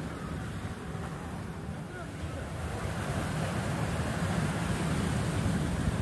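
Sea waves breaking and washing on a beach, the surf swelling louder over the second half, with wind rumbling on the microphone.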